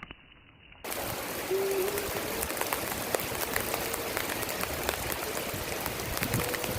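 Steady rain falling: a dense, even hiss full of small drop ticks. It starts abruptly about a second in, after a quieter, muffled stretch.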